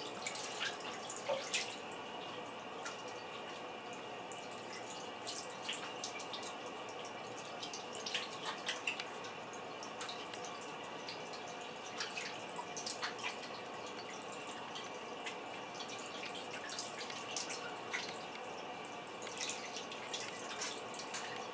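Bathroom tap running steadily into a sink while water is scooped and splashed onto a face by hand, irregular splashes over the stream, as cleanser is rinsed off the skin.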